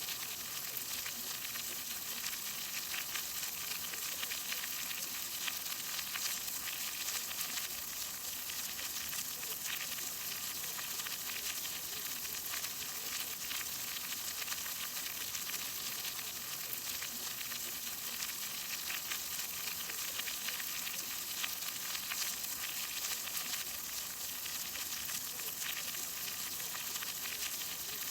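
Steady rain falling: a dense, even hiss of drops with many fine ticks, unchanging throughout.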